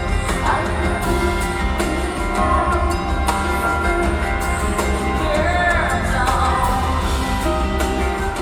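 Live rock-pop band music with a woman's voice singing a rising and falling phrase over a steady low bass-and-drum pulse, echoing in a large arena.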